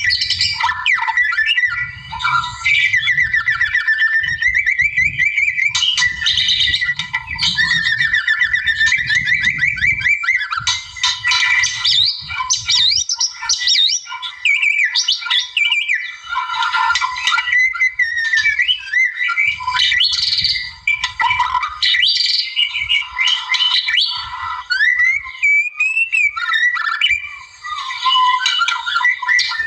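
White-rumped shama singing a loud, continuous, varied song of rich whistles, rising and falling glides, fast trills and harsh squawking notes, with hardly a pause. A low rumble sits under the song for the first half and briefly again later.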